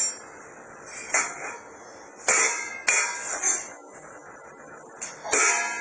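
Hard objects being struck or knocked together by hand: about five irregular clinking strikes, each with a short ring.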